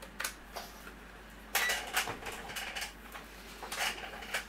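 Irregular plastic clicks and light clatter as a handheld digital multimeter is handled, set down on a workbench and its test probes picked up. The busiest clatter comes about a second and a half in, and another short run near the end.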